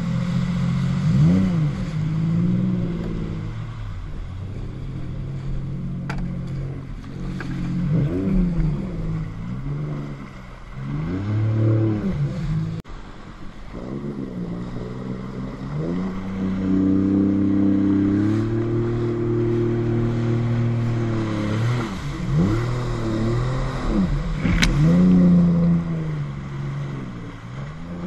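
Jet ski engine revving up and dropping back again and again as the rider throttles through the slalom turns, with a longer stretch held at steady high revs in the middle. Water spray and wind hiss over the microphone.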